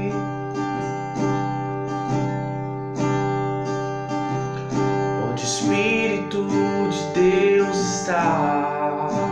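Acoustic guitar strummed steadily, about two strums a second. A man's singing voice joins over it in the second half.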